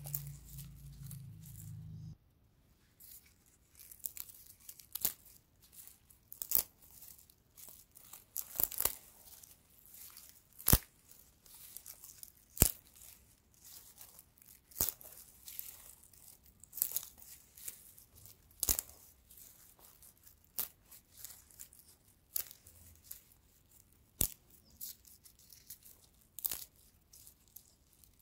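Dry straw stalks crackling and snapping close up as fingers bend, break and pull them apart. Sharp snaps come irregularly every second or so over quieter rustling. A low hum stops about two seconds in.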